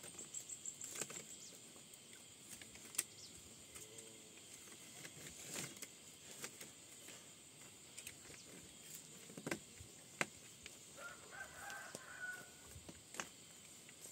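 Quiet outdoor ambience with faint bird calls, the clearest a short call about eleven seconds in, over a steady high hiss and scattered small clicks.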